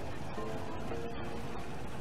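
Upbeat electronic dance background music, a melody of held notes stepping from pitch to pitch.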